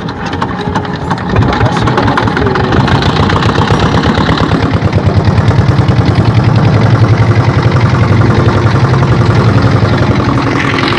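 A small engine running steadily with a fast, even pulsing beat, growing a little louder about halfway through.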